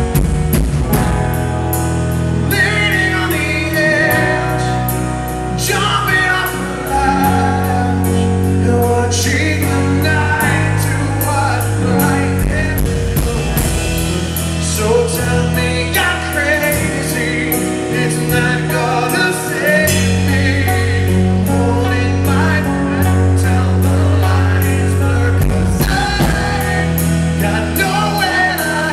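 Live rock band playing a song: a male lead singer sings over sustained bass notes and a steady drum beat.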